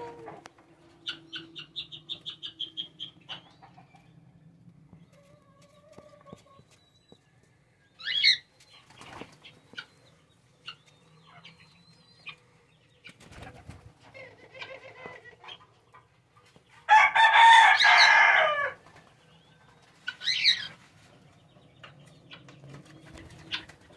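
Aviary birds: a quick run of high chirps early on, a few short sharp calls and wing flaps, then a rooster crowing loudly for about two seconds past the middle.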